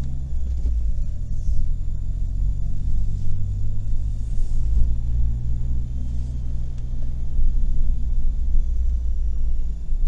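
Car driving on wet roads, heard from inside the cabin: a steady low rumble of engine and tyres, its engine tone easing off near the end.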